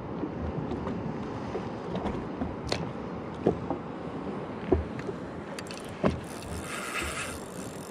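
Water lapping against the hull of a drifting jetski, with a few scattered sharp knocks and a brief higher rasp about seven seconds in.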